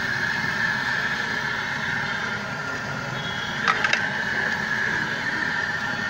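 Steady background noise of a busy street, with a few short clicks of dishes or food being handled about four seconds in.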